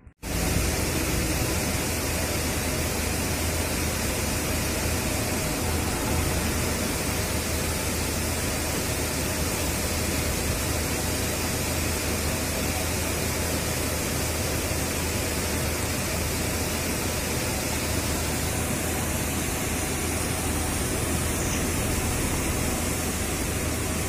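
Steady rush of a tall cascading waterfall: a loud, even wash of falling water that cuts in sharply at the start and holds level throughout.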